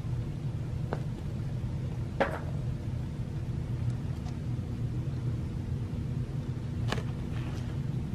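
Steady low rumble, with three short soft knocks about one, two and seven seconds in, the one near two seconds the loudest, as a cat rolls around and paws at a felt catnip toy on artificial turf.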